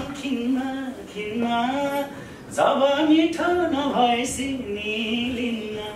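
A man singing a Nepali dohori verse unaccompanied, in five or six short phrases with gliding, ornamented pitch and brief breaths between them.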